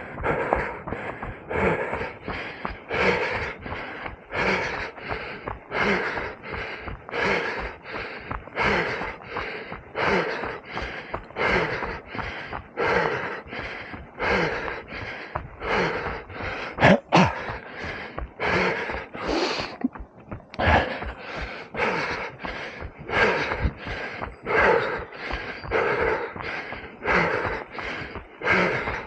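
A runner breathing hard close to the microphone, in a steady rhythm of about one and a half breaths a second, with one sharper, louder sound about two-thirds of the way through.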